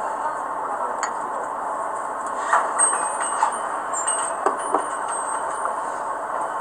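Glassware and tableware clinking a handful of times at a dining table, over steady background noise.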